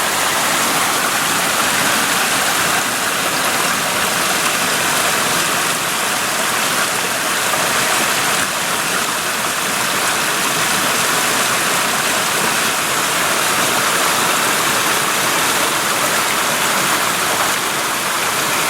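Small mountain stream flowing over rocks: a steady, even rush of water, loud and close.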